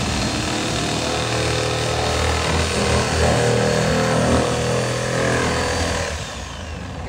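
A handheld power tool running steadily at the top of a plastic IBC tote, then spinning down with a falling whine about six seconds in.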